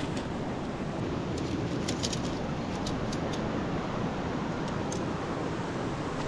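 Steady rush of a flowing river, with a few short, high ticks scattered through it.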